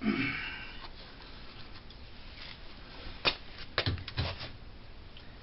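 Hand-fitting of a washing machine's motor-transmission coupling parts: a brief scrape at the start, then a sharp click about three seconds in and a few quick clicks and knocks shortly after as the parts are pushed together.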